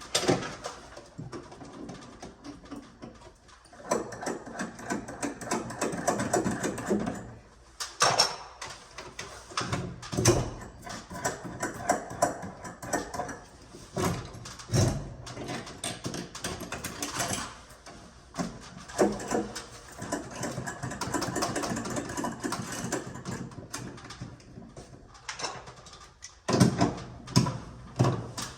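Irregular knocks, clicks and clatter of hardware being handled while a ceiling-mounted heat pump is hung on threaded rod, with stretches of a steady mechanical rattle.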